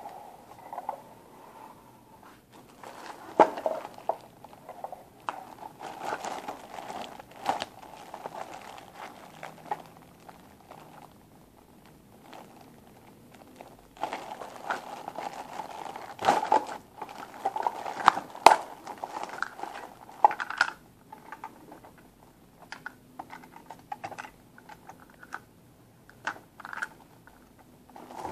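Thin clear plastic bag crinkling and rustling as hands rummage through it, with scattered sharp clicks and knocks of hard plastic toys being handled. The rustling comes in uneven spells and is busiest a little past the middle.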